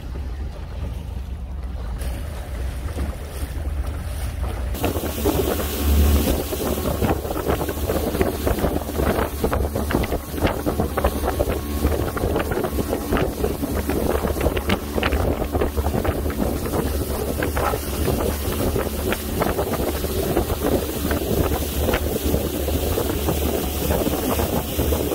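A motorboat's engine running steadily under way, with wind buffeting the microphone; the wind hiss grows louder about five seconds in.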